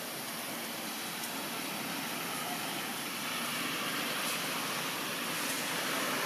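Steady outdoor background noise, an even hiss with no distinct events, growing a little louder about three seconds in.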